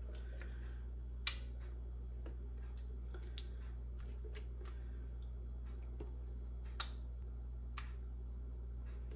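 A few light clicks and taps as mayonnaise is scraped from a plastic jar with a spatula into a glass mixing bowl, over a steady low hum.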